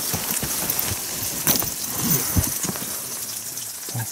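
Steady hiss of rain, with a few knocks and rustles of handling, the sharpest about one and a half seconds in.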